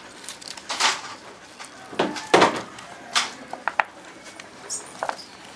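Hands tossing sliced onion rings and chopped green chillies on a large metal tray: irregular rustles and clinks, with a few sharper knocks.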